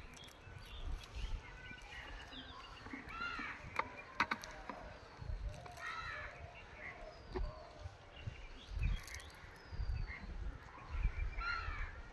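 Birds calling in the open: a few harsh, arched caws and short, falling whistled notes repeating every few seconds. Several sharp knocks come from close by, along with low rumbling.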